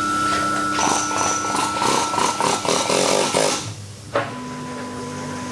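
Workshop tool noise: a stretch of rapid, irregular clattering and knocking, then a single click and a steady hum.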